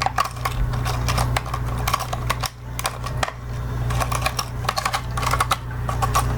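Plastic lure packaging being handled and pried open: a run of irregular sharp clicks and crackles, over a steady low hum.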